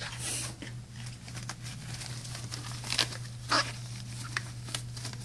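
Scattered small clicks and light rustling from hands handling parts and tools, the sharpest two about three seconds in and half a second later, over a steady low electrical hum.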